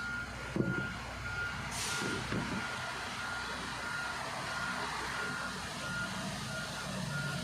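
Fire alarm control panel's buzzer beeping steadily, one high tone about twice a second. A few light knocks and a short rustle about two seconds in come from handling the wiring.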